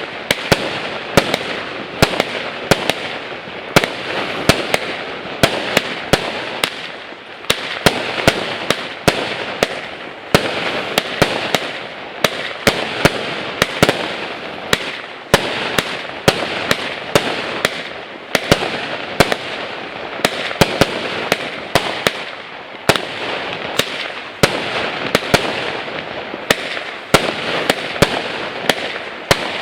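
An 81-shot 0.8-inch firework cake firing: a rapid, irregular string of sharp bangs, several a second, over a constant rushing noise that does not let up.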